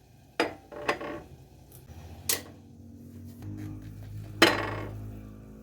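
Kitchen dishes and utensils knocking together: three sharp clinks, then a louder clang about four seconds in that rings on and fades over about a second.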